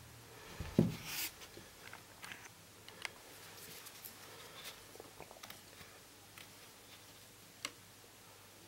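Scattered light clicks and scrapes of small tools handled at a workbench, with one louder thump a little under a second in.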